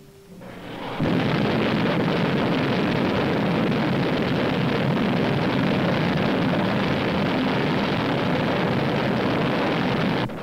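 Agena upper stage's Bell XLR81 liquid-fuel rocket engine firing on a static test stand. The noise builds over about a second into a loud, steady rush of exhaust that holds without change, then drops off abruptly near the end.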